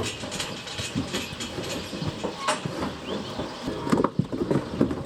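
Farm tractor running, with a loud irregular mechanical clatter and rattle.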